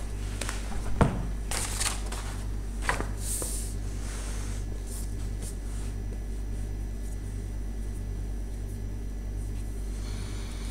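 Paper sketchbook being handled and its pages turned: a knock about a second in, then several short paper swishes, under a steady low hum that is all that remains after about four and a half seconds.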